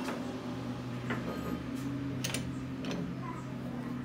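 A few light metallic clicks and taps as a splined steel piece is handled and slid onto a bevel pinion shaft, over a steady low hum.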